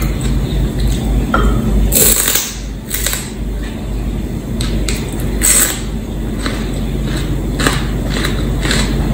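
Close-up crunching and chewing of raw celery stalks: crisp, irregular crunches about once a second or so, over a steady low hum.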